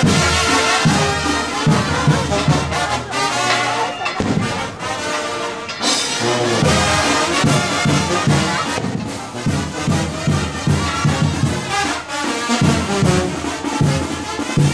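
A brass band playing, with a steady pulse of low bass notes under the melody.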